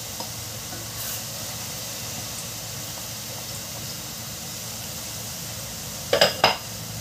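Minced garlic frying in hot oil in a stainless steel saucepan: a steady sizzle as it is stirred, with two loud knocks close together near the end.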